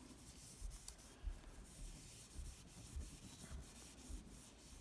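A cloth rag rubbing plastic polish over a hard plastic coin slab, in faint repeated strokes, buffing out hairline scratches.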